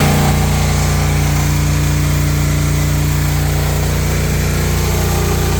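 A loud, steady engine running at a constant speed, starting abruptly.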